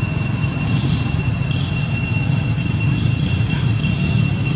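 Outdoor ambience: a steady high-pitched whine at two pitches over a low, rumbling noise.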